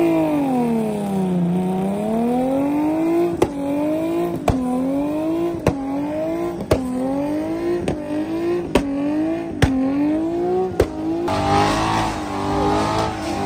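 Car engine held at high revs in a burnout, its pitch swinging up and down about once a second with a sharp crack in most cycles. About two seconds before the end it gives way to a rougher, louder rushing noise.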